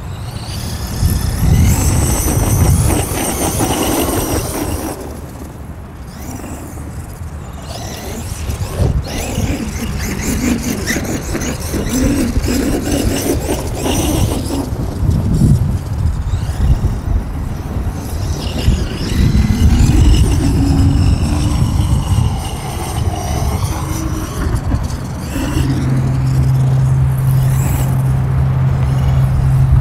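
Traxxas E-Revo 2.0 RC monster truck's brushless electric motor whining, rising and falling in pitch again and again as the truck accelerates, slides and slows on sand paddle tyres, over a loud low rushing noise. A steady low hum comes in near the end.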